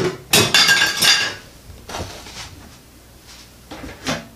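Dish clatter: a stoneware bowl of dry kibble and a glass chopping board being shifted on a kitchen worktop, with a ringing rattle for about a second, then a couple of single sharp knocks.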